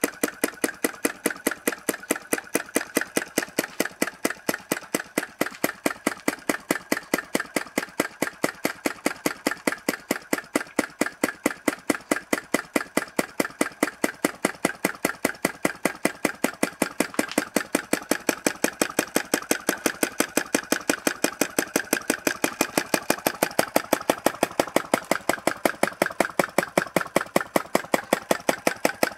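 James Maiwald model flame licker (vacuum) engine running steadily on its spirit burner, making a fast, even clacking rhythm of sharp clicks.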